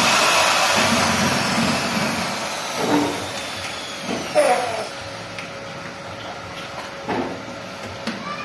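Cordless drill running against the steel gate frame while a rim night latch is fitted, its motor whine sagging slightly for about two and a half seconds before it trails off. A few short knocks and clicks follow as the lock is handled.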